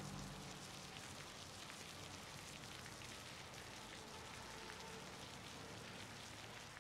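Faint rain falling in a steady patter of drops, dying away near the end.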